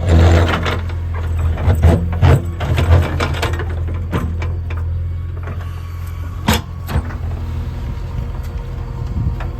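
JCB 3DX backhoe loader's diesel engine running steadily under load, with loud clattering knocks of the bucket and stones through the first few seconds and a few single sharp knocks later.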